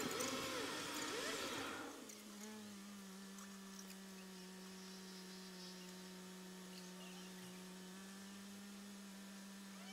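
A voice for the first two seconds, then a steady low hum with a fainter overtone inside the cabin of a car stopped at an intersection.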